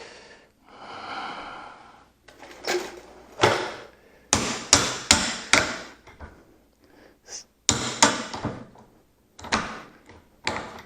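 Sharp metallic clunks and knocks as the control lever and spool of a homemade steel log-splitter valve body are forced back and forth; the valve is working stiff. A soft hiss comes first, then a quick run of four knocks, then a few more spaced ones.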